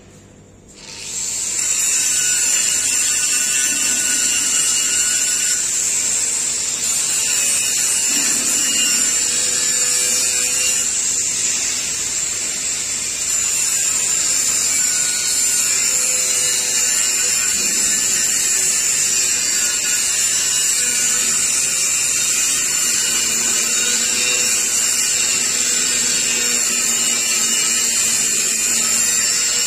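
Handheld angle grinder spinning up about a second in, then grinding a round metal pipe piece steadily with a loud, high whine.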